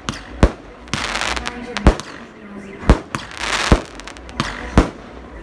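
Aerial fireworks bursting overhead: five sharp bangs, about one a second, with a hiss between them.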